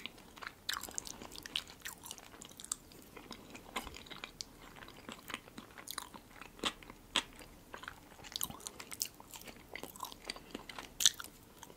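Close-miked soft chewing of holiday salads (herring under a fur coat) and potato, with scattered small mouth and fork clicks and one sharper click about eleven seconds in.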